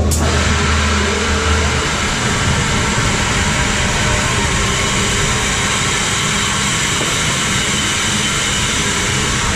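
Loud rushing air and wind buffeting on an onboard camera on a Huss Shot'n Drop tower ride. It begins suddenly with a sharp click and then stays steady, while a low hum underneath dies away within the first two seconds.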